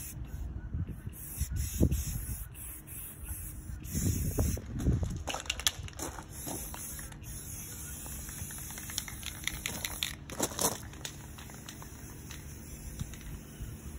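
Aerosol spray paint can hissing in long sprays broken by short pauses, with a few low bumps underneath.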